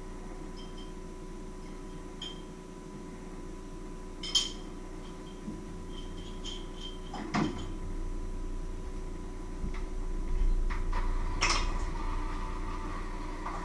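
Scattered knocks and clinks of dishes and utensils being handled, over a steady hum. The sharpest knock comes about four seconds in, with others near seven and eleven seconds.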